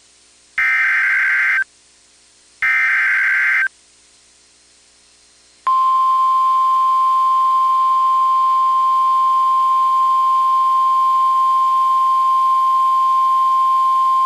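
Emergency Alert System SAME header on NOAA Weather Radio: two harsh warbling data bursts, about a second each and a second apart. After a short pause comes the steady 1050 Hz warning alarm tone, held for about nine seconds. It signals that a new warning, here a severe thunderstorm warning, is about to be read.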